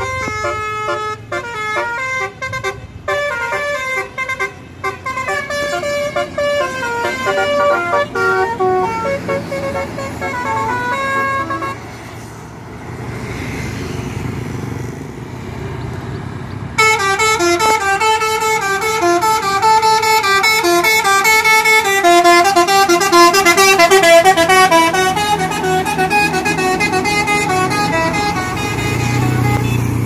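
Bus telolet musical air horns of the basuri type, playing quick melodic runs of stepping notes. One run fades away over the first dozen seconds. A loud new run starts suddenly about seventeen seconds in and keeps playing.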